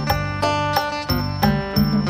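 Isan phin, a plucked Thai lute, playing a quick run of plucked melody notes over a steady low drone.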